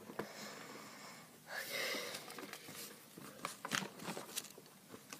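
A paper sheet rustling and crinkling as it is handled close to the microphone, louder for a moment about a second and a half in, with scattered light clicks later on.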